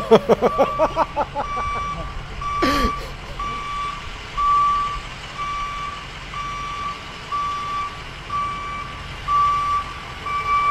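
Shuttle minibus's reversing alarm beeping steadily, about three beeps every two seconds, over its idling engine. There is a short burst of voice at the start.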